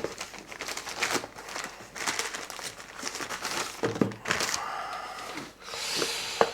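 Parcel wrapping being handled and pulled open: irregular crinkling and rustling, with a couple of sharp knocks near the end.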